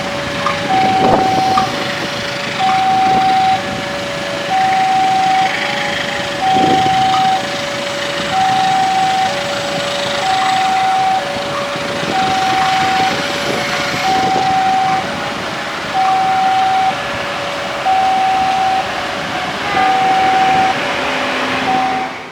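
Railway level-crossing warning alarm sounding its two-note electronic tone, a higher note then a lower note, repeating about every two seconds over steady traffic noise.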